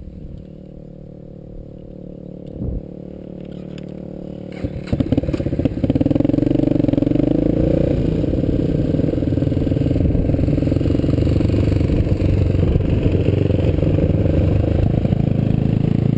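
Trail motorcycle engine heard from the bike carrying the camera. It runs low and steady at first, then gets much louder about five seconds in as the bike pulls away, with a few clicks and rattles, and keeps running steadily while riding along a gravel track.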